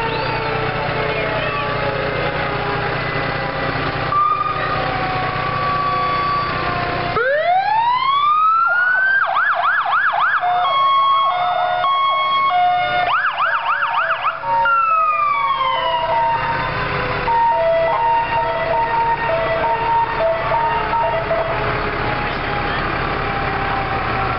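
Several fire truck sirens sounding at once in overlapping wails. About seven seconds in, one winds up and switches between a fast yelp and a hi-lo two-tone. It winds down again around the middle, and hi-lo two-tones carry on afterwards.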